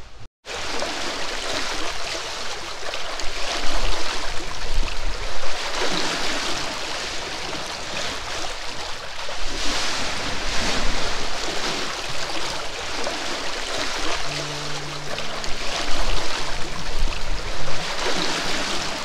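Sea water rushing and splashing along the hulls of a Leopard 45 sailing catamaran under way, in uneven surges, with wind noise on the microphone. A few low, steady music notes come in near the end.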